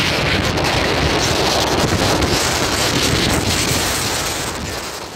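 Wind buffeting the microphone: a loud, steady, gusty rushing noise that fades out over the last second.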